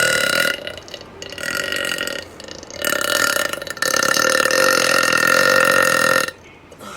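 A woman belching loudly several times in a row, one after another, the last belch long and drawn out and ending about six seconds in.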